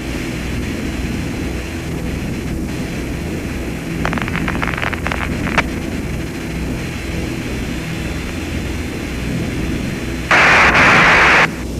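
Apollo radio-link background noise: a steady hiss over a low hum, with a short run of crackles about four seconds in and a loud burst of static for about a second near the end.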